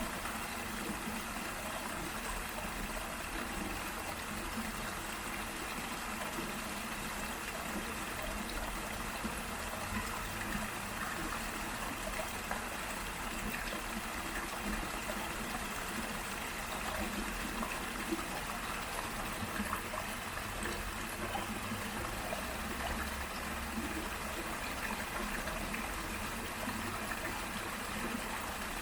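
A small waterfall and murmuring stream running steadily, the water splashing and trickling without a break.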